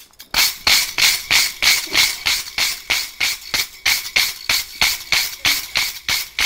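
Hand wire brush scrubbed back and forth over hot forged steel, a rhythmic scratchy rasp at roughly three strokes a second, brushing off the forge scale.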